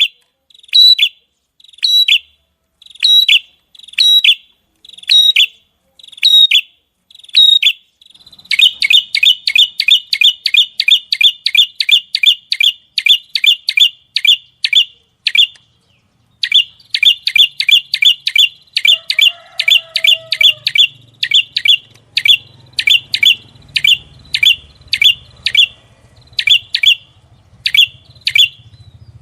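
Small songbird repeating sharp, high chirp notes, the rapid 'tembakan' (shot) call used in songbird tutor recordings. The notes come slowly at first, then speed up to about three a second after a third of the way in, with a brief pause about halfway.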